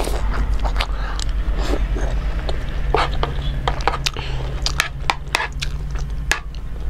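Close-up eating sounds of chewing chicken momo: a string of short wet smacks and mouth clicks scattered irregularly, over a low steady hum.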